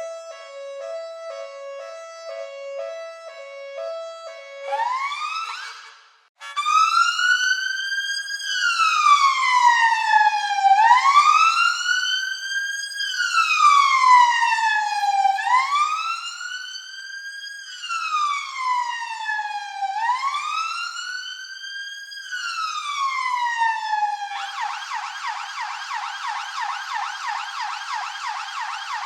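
Police siren patterns one after another. First a two-tone hi-lo siren alternating between two pitches, then a short rising sweep that cuts off. After a brief gap comes a wail that rises and falls slowly, about every four to five seconds, and near the end it switches to a fast yelp.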